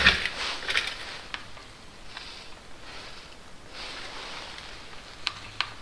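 Gloved hands handling a timing chain and cam sprocket on a bare V8 engine block: a few light clicks of the chain near the start and again near the end, with soft rustling of gloves and jacket in between.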